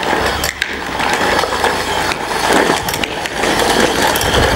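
Plastic toy dump truck pushed fast over a concrete floor, its hard plastic wheels rolling and rattling steadily.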